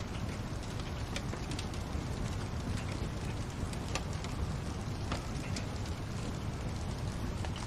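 Fireplace fire crackling: a steady low rumble of flames with scattered sharp pops and snaps.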